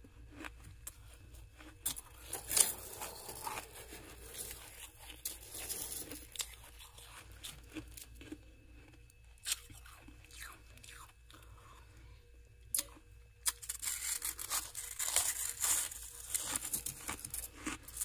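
Close-up crunching of dense freezer frost, grown with a humidifier: scattered sharp crunches, then a dense run of crackling crunches over the last few seconds.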